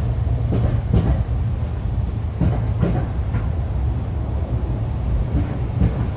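Motorcade vehicles, the presidential limousine and black SUVs, driving past as a steady low rumble, with a few brief louder swells of passing traffic.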